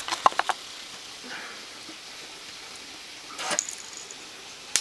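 Sharp little clicks and taps of a steel spring clip and cable being handled, with a short hiss about three and a half seconds in and a few more clicks at the end.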